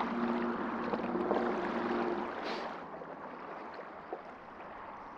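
Water washing and lapping at a lakeshore, heard as a steady rushing noise, with a low steady two-note hum for the first two seconds. The wash drops in level about halfway through.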